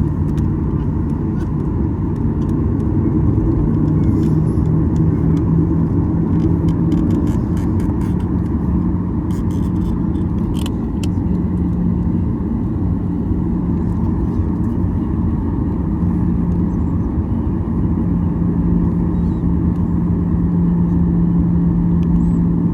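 Cabin noise inside a Boeing 737-800 from a window seat: a steady low rumble from its CFM56 engines and airflow, with a steady hum running through it, and a few faint clicks about halfway through.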